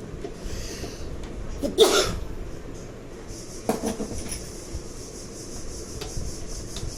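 Handling clatter of parts and tools, with two sharp knocks about two seconds in and again near four seconds, and a few lighter clicks over a steady hiss.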